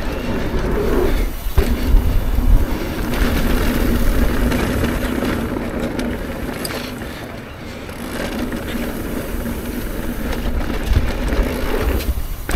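Trek Rail electric mountain bike rolling fast down a dirt trail: knobby tyres crunching and scraping over dirt and gravel, with heavy low wind rumble on the microphone. It goes quieter for a moment about halfway through.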